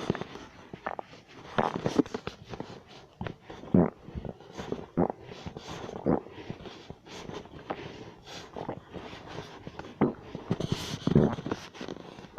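Stomach growling: a long run of irregular gurgles and rumbles, with louder gurgles about two, four and eleven seconds in.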